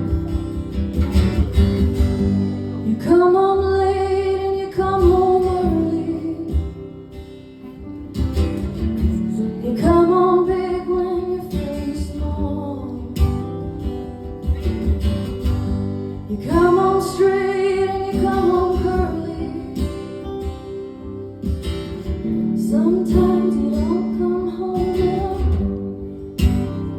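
Acoustic guitar strumming a steady instrumental intro, with a lead melody played or hummed over it in four phrases of long held notes.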